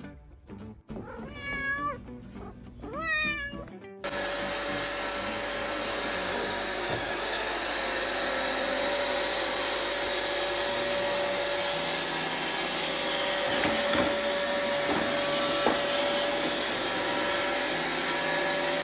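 A pet tabby cat meows twice as it is stroked on the head. About four seconds in, a robot vacuum cleaner runs: a steady whirring hiss with a constant hum.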